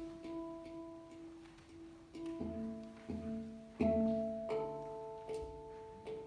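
Hang (handpan) played with the hands in a slow, sparse phrase: single struck notes ring on and fade slowly. The notes come thinly at first, then about every half second from two seconds in, with the loudest strike near the middle.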